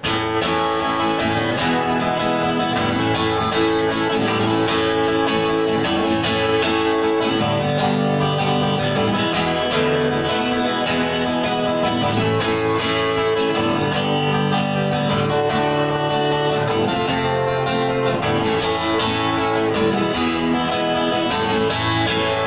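Acoustic guitar strummed in a steady rhythm, chords ringing without any singing.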